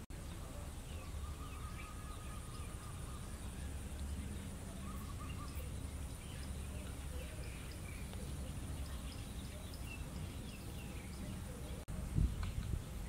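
Rural outdoor ambience: a steady low rumble of wind on the microphone, with scattered short bird chirps and a faint steady high tone. Near the end the sound drops out for an instant, then there is a thump.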